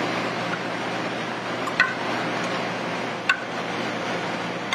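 Two light metallic clinks about a second and a half apart, metal tongs knocking the rim of a stainless steel sauté pan as broth and seafood are poured onto a plate, over a steady background hiss.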